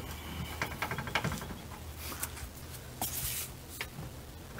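Light metallic clicks and scraping as the lower shock bolt is worked out of its mount by hand, with a quick run of ticks about a second in, over a low steady hum.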